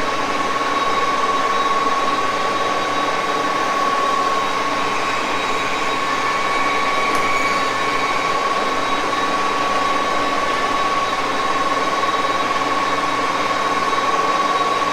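Axelson engine lathe running at speed while a diamond-insert tool cuts a thin aluminium tube held in a six-jaw chuck. A steady high-pitched whine sits over even machine noise throughout.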